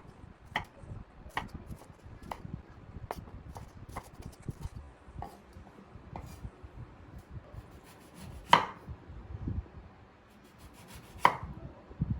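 Knife chopping food on a cutting board: single, unhurried strikes about once a second, irregular in spacing, with two harder strikes in the second half.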